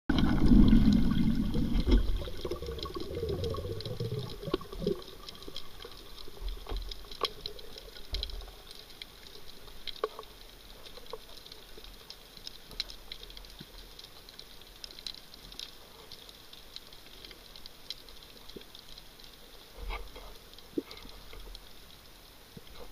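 Underwater water noise picked up by a camera in its housing: a low rushing sound, loudest in the first two seconds and fading over the next few, then a faint hiss with scattered sharp clicks and crackles.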